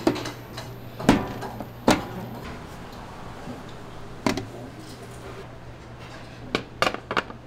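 Scattered sharp knocks and clatters of dishes and containers being handled, loudest about a second and two seconds in, with a quick run of knocks near the end. A steady low hum runs underneath.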